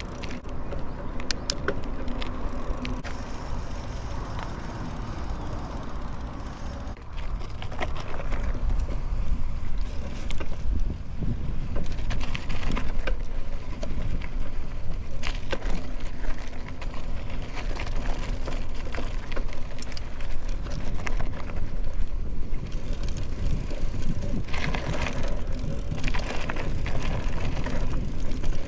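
Mountain bike being ridden, heard from a camera on the rider: a steady low rumble of tyres and wind on the microphone, with scattered clicks and rattles from the bike. It gets louder about eight seconds in as the bike moves from pavement onto a dirt single-track.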